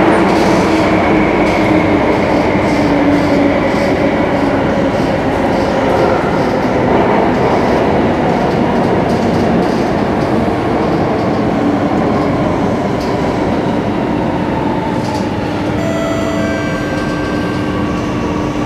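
Singapore MRT Circle Line electric train running through a tunnel, heard from inside the carriage: a loud, steady rumble of wheels on rail with humming motor tones. About 16 seconds in, several new higher whining tones come in and the rumble eases slightly.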